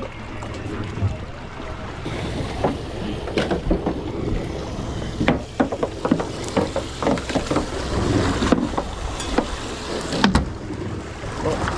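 Haynes Hunter 725 trailer boat running at sea: the hull slaps and splashes through the waves in irregular knocks, with wind on the microphone.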